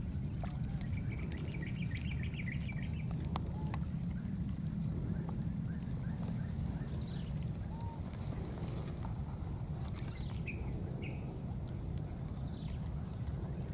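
Outdoor ambience with a steady low rumble. Over it come scattered high chirps and calls, with a short fast trill about a second in and a quick run of repeated chirps a few seconds in.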